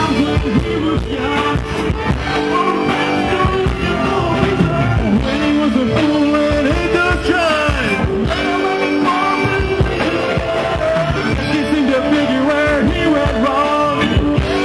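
Live rock jam band playing, with electric guitar, keyboard and drums, and a voice singing over the band.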